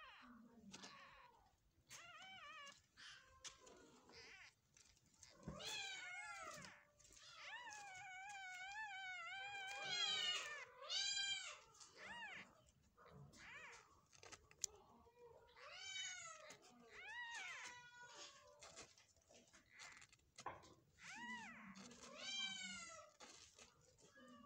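Newborn Persian kittens mewing repeatedly: thin, high calls that rise and fall in pitch, some short and some drawn out for a second or two.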